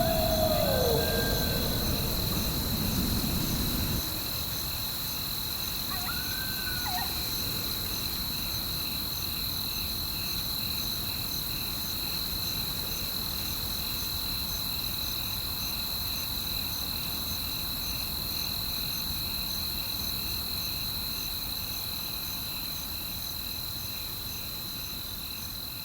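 A steady, pulsing chorus of crickets runs throughout. A wolf howl trails off at the start and a short, faint howl comes about six seconds in. A low rumbling noise cuts off abruptly about four seconds in, and the whole sound fades out near the end.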